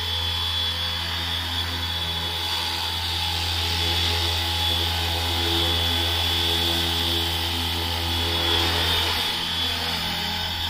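Flywing FW450 V3 RC helicopter in flight, its electric motor whining and rotor blades humming steadily, a little louder in the middle.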